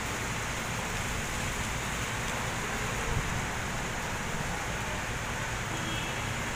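Heavy typhoon rain pouring steadily onto a street and parked cars, driven by strong wind, with a low rumble underneath.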